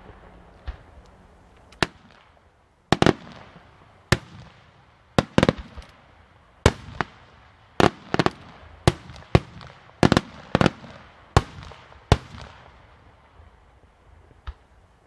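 Aerial fireworks shells bursting in an irregular series of sharp bangs, more than a dozen in about ten seconds, some in quick pairs, each followed by a brief echo. The bangs die away about twelve seconds in, leaving one faint pop near the end.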